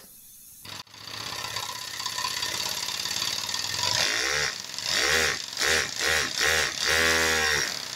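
3D-printed single-cylinder compressed-air engine starting about a second in, then running fast with a hiss of air. Its speed swells and drops several times in the second half. The exhaust valve now has a return spring, so it runs without the misfiring it had before, a very noticeable improvement.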